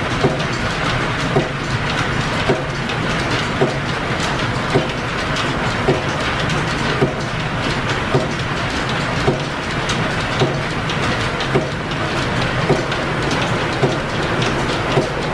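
Belt-driven, line-shaft-powered machine shop machinery running steadily, with a sharp click repeating evenly about once every second.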